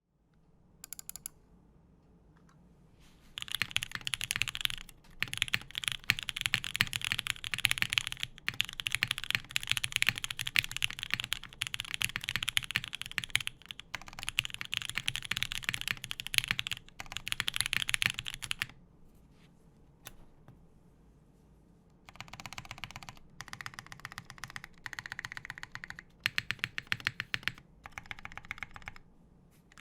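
Lin Whale VKG mechanical keyboard with lubed Marshmallow switches on an aluminium plate and GMK keycaps, being typed on fast. The typing starts a few seconds in, stops for about three seconds around two-thirds through, then resumes with a slightly lower tone.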